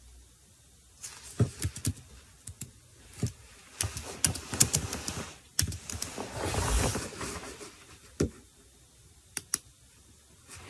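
Fingers typing: irregular light clicks and taps in small bunches, with a longer soft rustle partway through.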